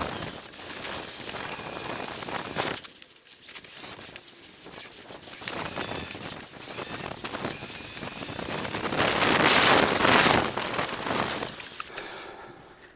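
Riding an electric bike: wind rushing over the microphone together with road and drivetrain noise, swelling and easing, then dying away about a second before the end as the bike slows.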